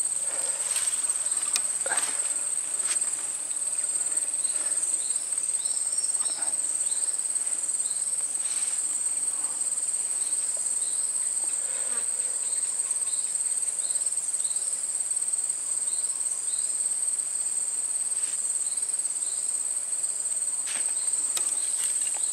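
A continuous, high-pitched insect chorus, with short chirps recurring over it.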